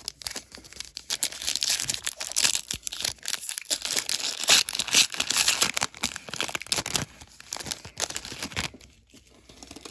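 Foil trading-card pack wrapper being torn open and crinkled by hand, a dense crackling rustle that dies down near the end.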